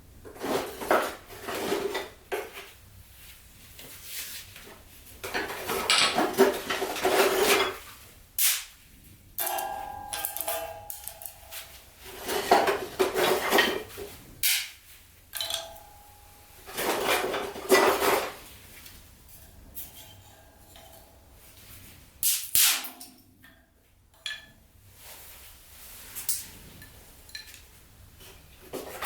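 Metal pieces clattering and clinking as they are handled, in repeated bouts of a second or two with short pauses between, and a brief ringing note about ten seconds in.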